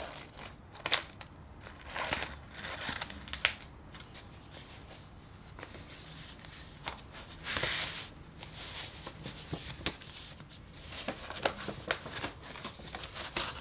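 Paper rustling and crinkling as a folded paper envelope is opened and unfolded by hand, in irregular bursts with a few sharp clicks.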